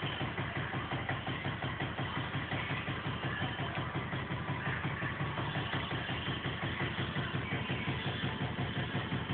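An engine idling steadily, with an even pulse of about five beats a second.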